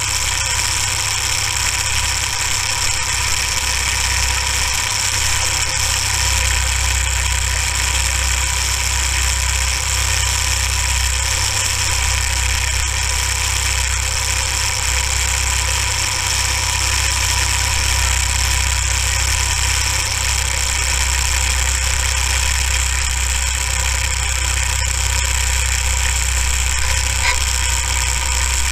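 Small go-kart engine idling steadily, with no revving.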